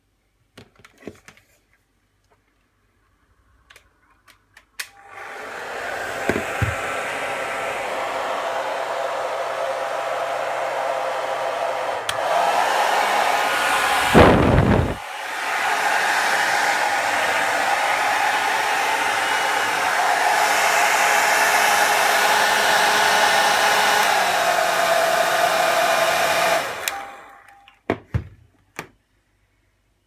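A 750-watt hair dryer switches on about five seconds in and runs steadily with the whine of its fan and the rush of air, then switches off near the end. Partway through there is one brief, louder rush of noise. A few small clicks come before it starts and after it stops.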